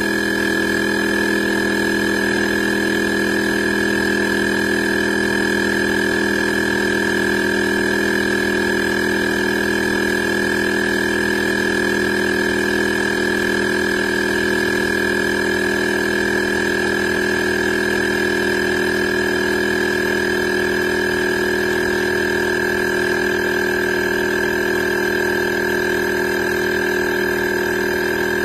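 Portable 12V tire-inflator air compressor running with a constant, unchanging drone made of several steady pitches.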